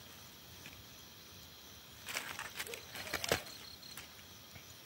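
Roasted chicken pieces being pushed off a metal skewer onto a metal plate: two short scraping bursts about two and three seconds in, over a faint steady hiss.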